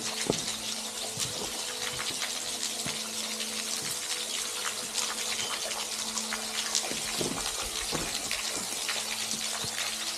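A steady rushing hiss with scattered light clicks. Soft ambient background music with held low tones runs underneath.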